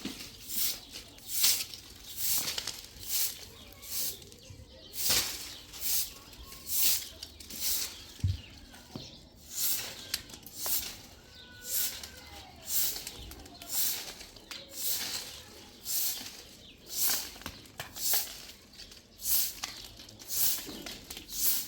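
Rhythmic scraping strokes, a little over one a second, each a short hiss.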